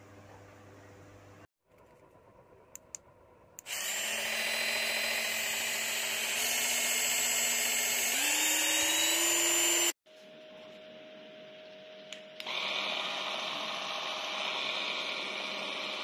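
Cordless electric hand mixer running in the air with a steady high motor whine that steps up in pitch twice as it is switched to higher speeds, then stops abruptly. After a short faint hum, a hand mixer's motor starts up again about three seconds later and keeps running.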